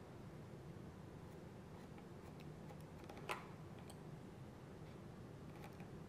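Faint clicks of haircutting scissors and a comb being handled over wet hair, with one sharper click about three seconds in, against quiet room tone.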